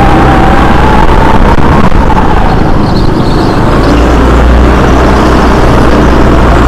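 Go-kart engine running loud and steady, with a whining tone that climbs a little in pitch over the first two seconds and then fades.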